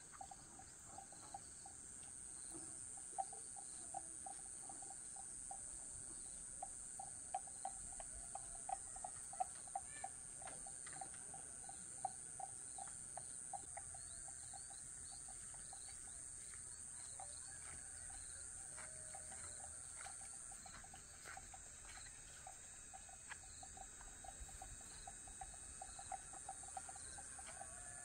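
Insects trilling: a steady high-pitched drone over a lower pulsing chirp that repeats several times a second, with scattered faint clicks.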